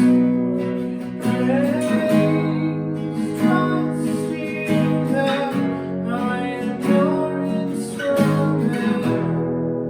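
Acoustic guitar strumming chords in a worship song.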